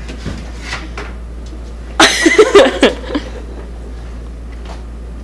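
A woman's short burst of laughter, about a second long, starting about two seconds in, over a steady low room hum.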